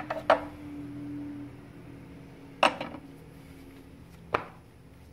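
A few sharp clicks and knocks, small hard taps: a quick cluster at the start, another about halfway through and one near the end, over a low steady hum.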